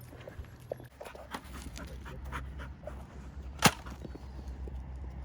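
A dog panting, with scattered small clicks and one sharp knock about two-thirds of the way through, over a low steady rumble.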